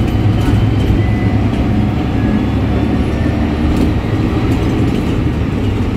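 City bus running under way, heard from inside the cabin: a steady low engine drone with a faint thin high whistle from its Voith automatic gearbox, and a few light rattles.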